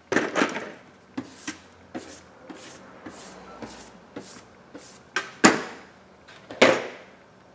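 Small tools and a phone being picked up and set down on a workbench mat: a run of knocks and clatters. The loudest come at the very start, about five and a half seconds in and just before the end, with lighter taps between.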